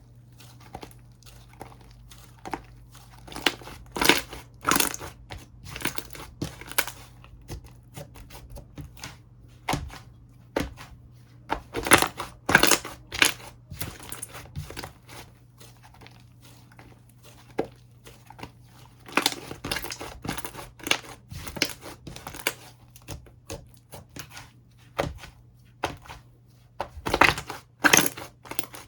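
Slime being played with by hand, giving irregular clusters of sharp crackling clicks and pops. These come in several louder bursts, over a faint steady low hum.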